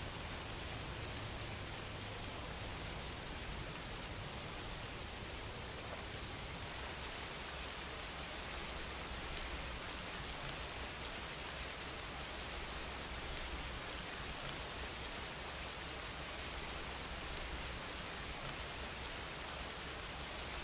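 Steady hiss of light rain, even and unbroken, with a low rumble underneath.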